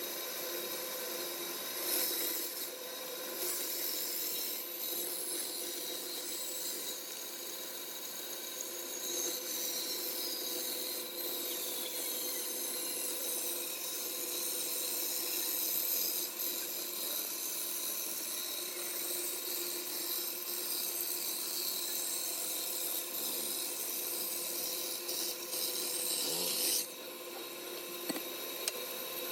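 Palm wood being worked with a tool, giving a steady abrasive rasping and rubbing that runs on without pause, over a few constant tones. It drops away suddenly near the end.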